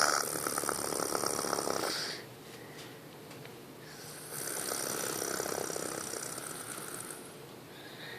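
Heavy snoring from a sleeper after an operation: two long snores, the second starting about two seconds after the first ends, with quieter breathing between.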